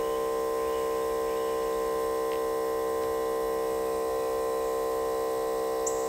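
Andeman JS-301A smoke leak detector running in smoke mode, its pump giving a steady, even hum of several pitches together while it starts producing smoke.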